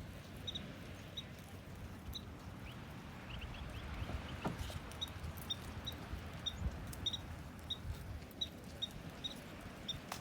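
A small bird calling with short, high chip notes, about two a second, with a few quick rising notes early on, over a low outdoor rumble.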